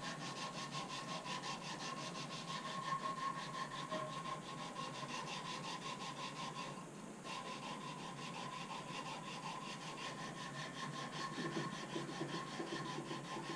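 Quick, even back-and-forth rubbing strokes of hand abrading on the metal trigger guard of a Kibler SMR flintlock rifle kit, dressing out fine file marks. A faint steady hum runs underneath.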